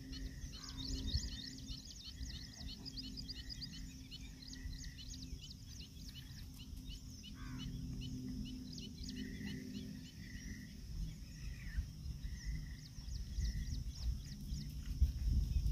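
Small birds chirping rapidly and continuously, with a short note repeated about once a second, over wind rumbling on the microphone.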